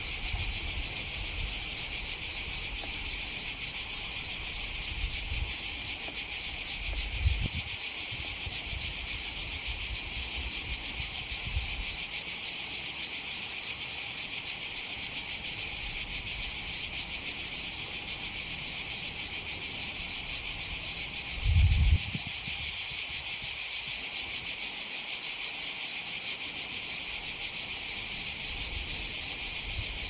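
Steady high-pitched insect chorus that runs without a break. There is a brief low thump about 7 seconds in and a louder low rumble about 22 seconds in.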